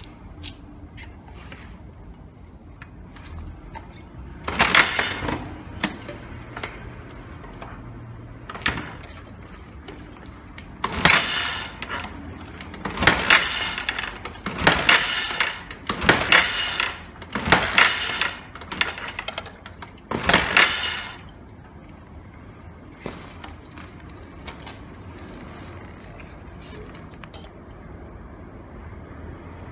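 Suzuki Grasstracker BigBoy's single-cylinder engine being cranked over in about seven bursts of roughly a second each, with the spark plug out and a compression gauge in its place, so the engine turns without firing while the gauge reading builds.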